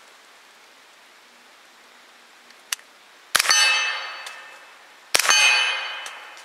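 Two suppressed shots from a Colt 9mm AR-15 carbine with a YHM Sidewinder suppressor, its can wetted with a little water, about three and five seconds in. Each shot is a sharp crack followed at once by the clang of the bullet hitting a steel plate, which rings out and fades over about a second and a half. The plate's ring is a lot louder than the gunshot.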